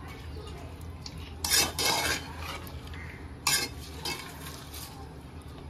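Metal spoon stirring and scraping through raw chicken pieces and soaked chana dal in a hammered aluminium pot, a series of scrapes against the pot, loudest about one and a half to two seconds in and again around three and a half seconds.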